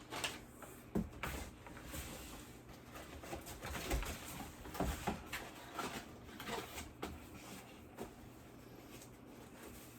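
Hands working open a tightly sealed package: irregular rustling, crinkling and light knocks of packaging being pulled apart.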